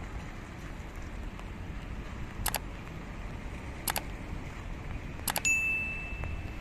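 Subscribe-animation sound effect: three mouse clicks about a second and a half apart, then a bell ding that rings on for about a second. Under it is a low, steady outdoor street background.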